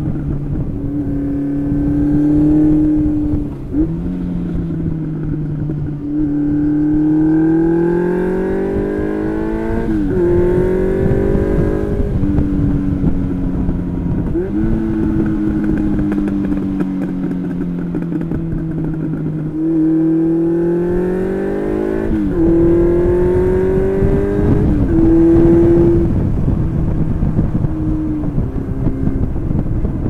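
1992 Honda CB750 Seven Fifty's carburetted air-cooled inline-four, on an exhaust without mufflers, accelerating through the gears: the engine note climbs and drops sharply at each of several upshifts. In one stretch it eases off and the pitch sinks slowly. Wind rumble sits underneath.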